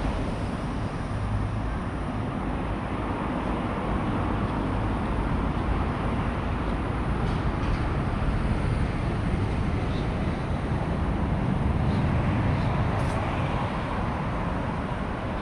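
Steady hum of road traffic, with no distinct events standing out.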